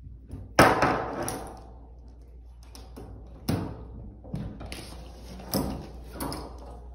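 Under-the-door lever opener tool being worked: the hook and wire knock and clatter against the door and its lever handle as the wire is pulled. One sharp knock about half a second in is the loudest, followed by several lighter knocks.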